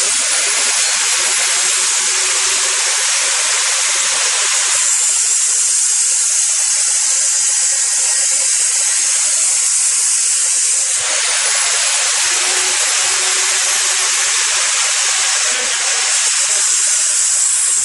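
A loud, steady hiss like rushing air or steam, which changes in tone about five seconds in and again about eleven seconds in.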